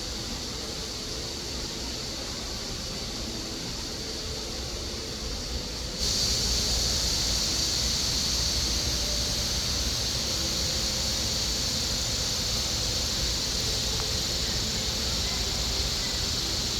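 Outdoor summer ambience dominated by a steady, high, shrill insect drone that gets louder suddenly about six seconds in.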